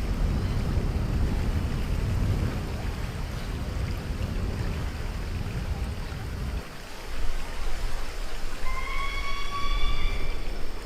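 Rushing, splashing water of a raft ride's rapids, with a low rumble that drops away about two-thirds of the way through. Near the end a steady high tone with overtones sounds over the water.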